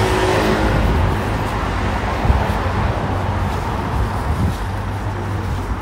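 Street traffic: a motor vehicle passes close by in the first second or so and fades, over a steady low rumble of traffic on the road.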